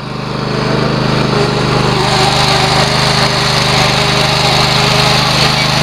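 Riding lawn mower engine running steadily under way, getting louder over the first second or so and then holding an even drone.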